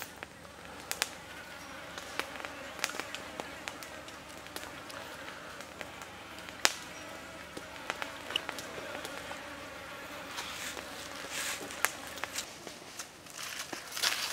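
Insects buzzing faintly over a steady background hiss, with scattered sharp clicks and ticks that grow more frequent near the end.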